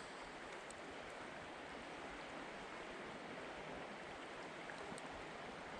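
Faint, steady rush of a small creek's flowing water, with a couple of tiny ticks.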